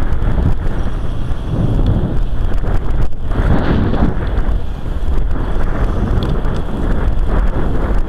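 Wind buffeting the microphone of a camera riding on a moving recumbent trike, a loud, dense rumble, mixed with the trike's tyres rolling on the asphalt path. The rumble eases briefly about three seconds in.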